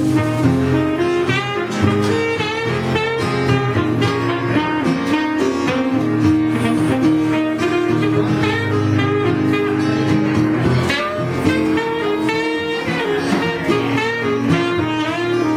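Saxophone playing the lead melody over acoustic guitar accompaniment in a live duo.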